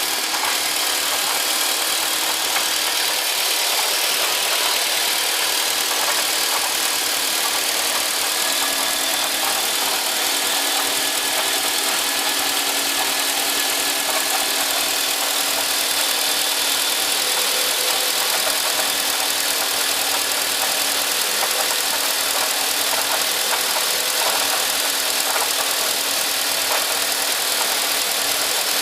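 Mitsubishi Lancer Evolution X's turbocharged 2.0-litre four-cylinder idling steadily from cold, with a strange clanking, knocking noise coming and going over the running engine.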